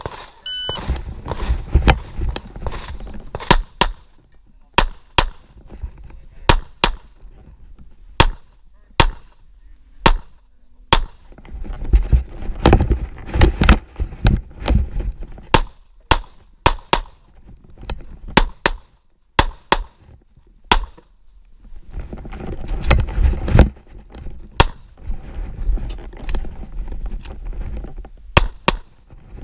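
A shot-timer beep, then a pistol firing dozens of shots through a practical shooting stage, mostly in quick pairs, with short gaps between the strings while the shooter moves to the next targets.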